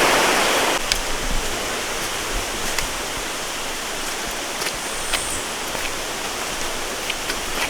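Fast-flowing stream rushing, loud at first and then dropping suddenly to a quieter, steady rush about a second in, with a few faint, short high clicks scattered over it.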